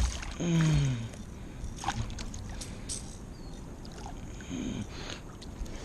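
Water splashing and knocks against a kayak hull as a hooked fish is brought alongside and landed, with a short falling grunt from the angler about half a second in.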